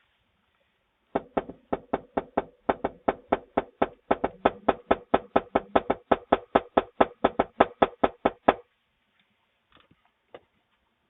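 A fist banging on a door in a fast, even run of knocks, about five a second for some seven seconds, then stopping suddenly. A couple of faint knocks come near the end.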